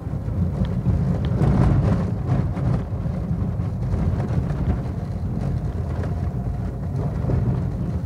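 Car driving on an unpaved dirt road, heard from inside the cabin: a steady low rumble of engine and tyres on the rough surface, with scattered knocks and rattles. It is loudest between about one and three seconds in.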